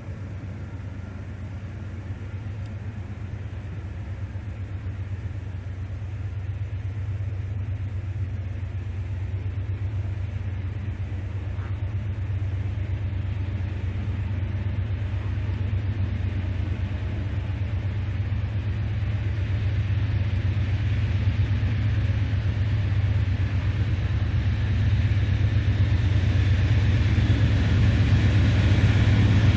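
Diesel locomotives of an approaching freight train, their engines' low rumble growing steadily louder.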